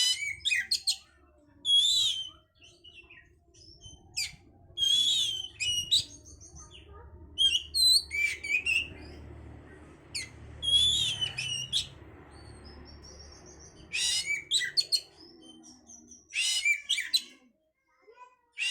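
Oriental magpie-robin (kacer) singing loud, short, varied phrases, one every couple of seconds with brief pauses between, the kind of song played as a lure to rouse breeding drive in kept magpie-robins. A faint low hum runs underneath and stops near the end.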